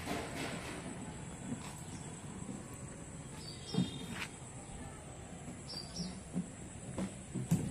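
Birds chirping briefly a few times over a steady high-pitched insect drone, with a few soft low knocks.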